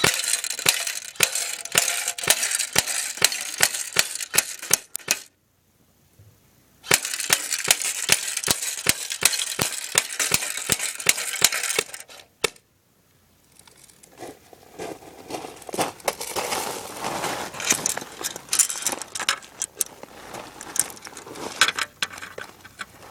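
G&G Combat Machine airsoft electric gun firing two long strings of rapid shots, each about five seconds, with BBs clicking off a can, then a single shot. After that comes softer, irregular clattering.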